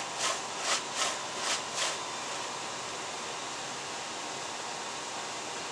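Tanned coyote hide drawn quickly back and forth over an upright metal breaking blade to soften it: about six scraping strokes at roughly three a second, stopping about two seconds in and leaving a steady hiss.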